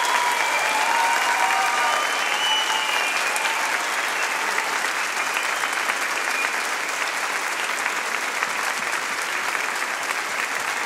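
Large audience applauding steadily, with cheers rising over the clapping in the first few seconds.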